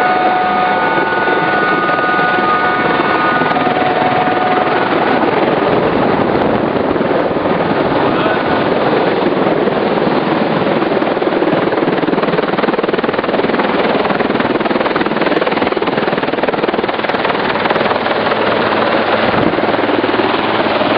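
Helicopter cabin noise in flight: the rotor, turbine and gearbox make a loud, steady, dense noise, with a few steady whining tones over it for the first few seconds.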